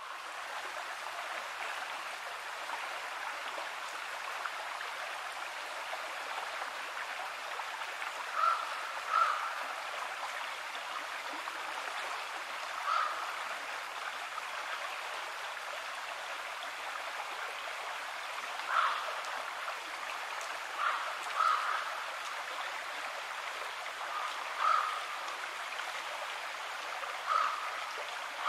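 Steady rushing of a shallow, rocky river, with about nine short high blips scattered over its second half, a few seconds apart.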